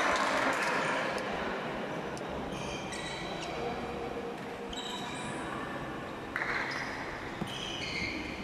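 Basketball game audio: crowd noise dying away, with short high-pitched sneaker squeaks on the court several times over the following seconds.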